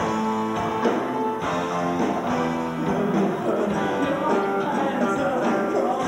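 Live rock band playing, with guitar chords held and ringing to the fore.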